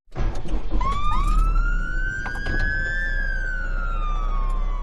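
Siren sound effect: two overlapping wailing tones that rise for about two seconds and then fall, over a deep hum, with a few sharp clicks in the middle.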